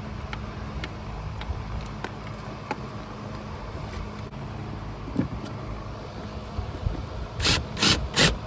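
Cordless drill/driver run in several short, loud bursts about seven and a half seconds in, driving in a screw that holds the heater core cover. Before that come light clicks and handling noises over a steady low hum.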